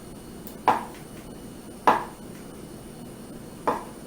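Kitchen knife cutting down through a block of firm tofu and striking the cutting board, three separate chops about a second or two apart.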